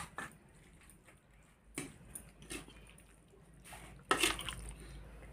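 Metal spoon scraping and clinking against a metal kadai as cooked spinach is stirred and scooped, in a few separate strokes with the loudest about four seconds in.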